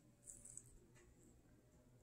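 Near silence, with a brief faint rustle near the start and a faint tick about a second in, as hands lift and fold pastry dough on a silicone baking mat.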